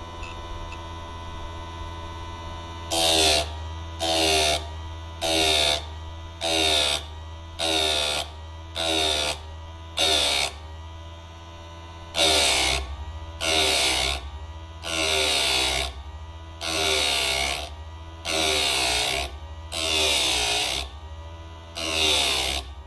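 Electric saw-chain sharpener's motor running steadily, its grinding wheel dipped against a chain tooth in short strokes: about fifteen brief bursts of grinding, roughly one every second or so, starting about three seconds in with a short pause midway. The strokes are kept short so as not to overheat the link.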